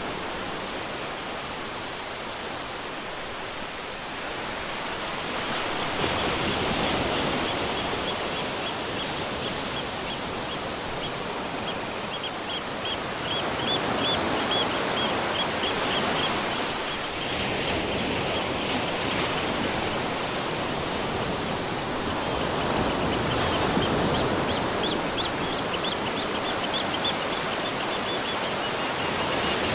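Ocean surf washing in steadily, swelling and easing in level, with a bird chirping in rapid high runs of short notes from about a fifth of the way in.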